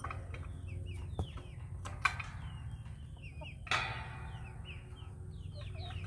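Chickens calling with many short, high, falling chirps, over a low steady rumble. A few sharp knocks cut through, the loudest about two seconds and three and a half seconds in.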